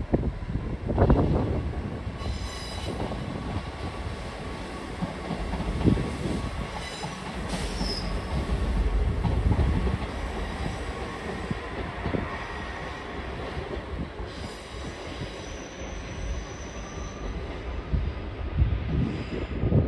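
A train moving on the rails with a steady low rumble, its wheels giving short high squeals a few times.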